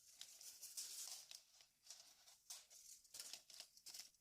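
Faint, irregular scraping and rustling of a tape measure's steel blade sliding against its plastic case as it is wound back in.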